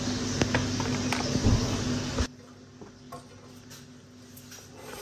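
Handling noise from a breaded chicken patty and its plastic packet: a rustling hiss with small clicks. It drops off abruptly a little over two seconds in, leaving a much quieter stretch with a faint knock as the patty goes into an air fryer basket.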